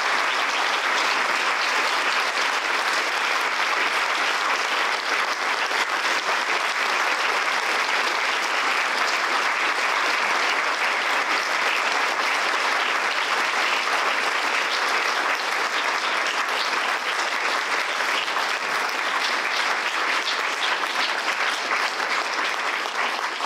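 An audience applauding, many hands clapping at a steady level throughout.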